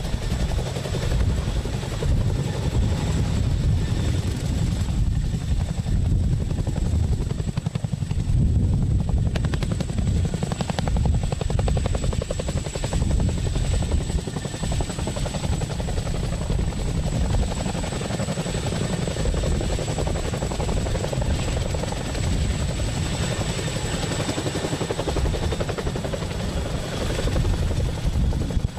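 Boeing CH-47 Chinook tandem-rotor helicopter running, a fast low beat of rotor blades with a thin steady high whine over it.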